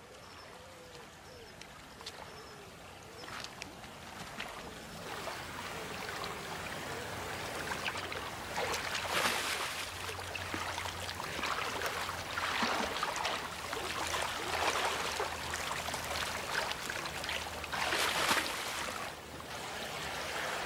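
Brown bear wading through a shallow, stony river: running water with irregular splashes that grow louder from about eight seconds in.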